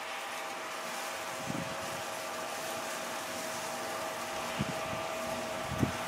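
Steady drone of distant machinery with a constant whine. Wind buffets the microphone in short gusts a few times.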